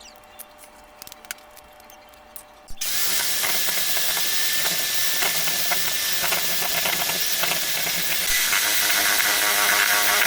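A few light clinks, then about three seconds in an electric kitchen mixer switches on and runs steadily with a dense whirring hiss, its whine growing a little louder near the end.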